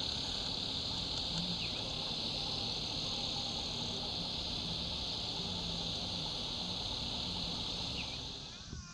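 Cicadas buzzing in a steady, shrill chorus that fades out near the end.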